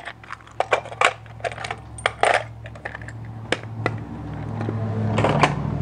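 Small metal tools and a metal tin clinking and clicking as they are handled and set down on a wooden workbench, in a series of separate sharp clicks. A low steady hum grows louder near the end.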